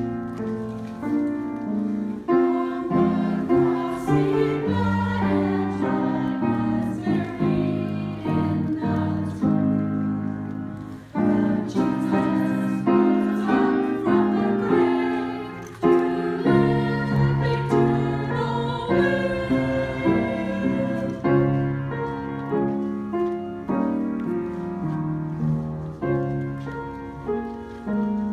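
Small church choir singing with piano accompaniment.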